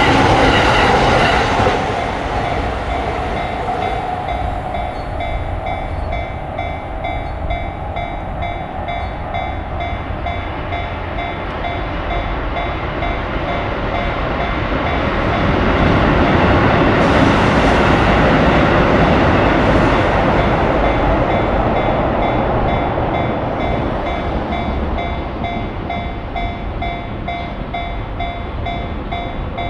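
Japanese level-crossing warning bell ringing in a steady, evenly repeating pattern over the rumble of passing electric trains. The train noise is loud at the start, eases, then swells again midway before easing off.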